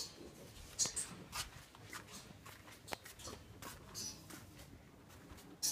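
Scattered light knocks and shuffling of footsteps on a wooden deck, with rustling from the phone being handled.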